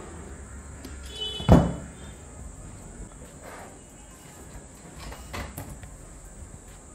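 Small plastic and metal parts of a portable DVD player and a pair of pliers being handled on a workbench: one sharp knock about a second and a half in, then a few lighter clicks. A faint steady high-pitched tone runs underneath.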